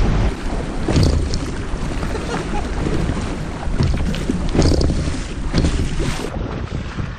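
Wind rumbling on the microphone over water moving around a kayak, with several short splashes or knocks.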